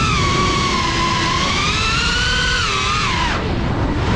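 High-pitched whine of a GEPRC Cinelog35 cinewhoop's brushless motors and propellers, its pitch rising and falling with the throttle over a rush of air, then falling away sharply about three seconds in as the throttle is cut for a dive.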